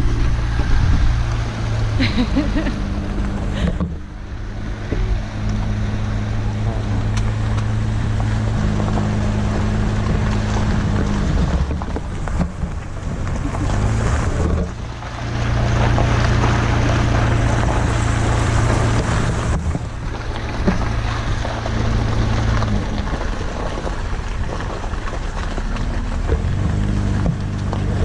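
A vehicle engine running, its pitch shifting up and down several times, over a steady rushing noise.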